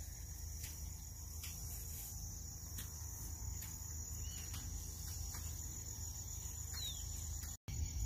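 Insects (crickets or similar) in a steady, high-pitched trill over a low wind-like rumble, with a few faint ticks and a short bird chirp near the end. The sound cuts out for an instant just before the end.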